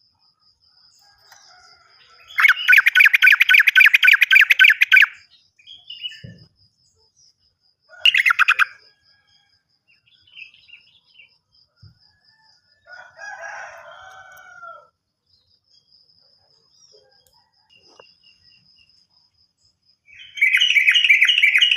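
Yellow-vented bulbul (trucukan) song: loud, rapid rattling phrases, a long one a couple of seconds in, a short one about eight seconds in and another long one starting near the end, with a softer, lower phrase in between. A faint, fast, high ticking call carries on through the pauses.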